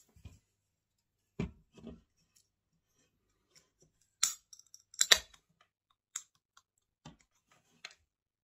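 An aluminium drink can is handled with a couple of dull knocks, then its ring-pull tab is cracked open about four seconds in: two sharp cracks about a second apart, the loudest sounds here, followed by a few faint clicks.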